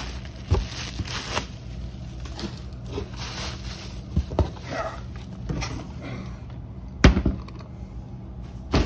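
Bubble wrap rustling and crackling as it is pulled out of a cardboard box, with scattered clicks. A sharp knock about seven seconds in is the loudest sound: the metal ammunition can being set down.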